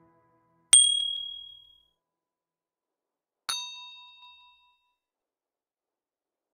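Two bright metallic dings, the first about a second in and the second about three seconds later, each ringing out for about a second.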